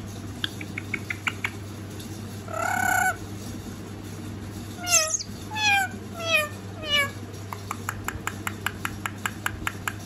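Green Psittacula parakeet calling: one short call about three seconds in, then four short downward-sliding calls between about five and seven seconds. Runs of quick clicks come before and after the calls, the later run at about four or five clicks a second.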